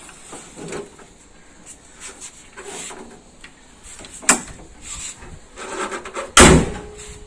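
Renault Mégane I bonnet being shut: a sharp click a little past four seconds, then a single loud slam about six and a half seconds in, with a short ring after it.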